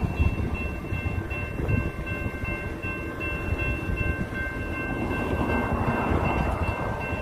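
Railroad crossing bells ringing steadily over the low rumble of an intermodal freight train rolling through the crossing.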